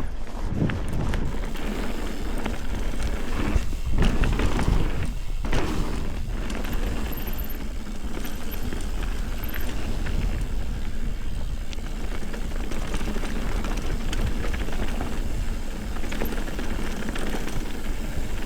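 Ibis Ripley mountain bike riding downhill on a dirt trail: steady rolling tyre and trail noise, with the bike rattling and knocking over bumps, most heavily about four to six seconds in.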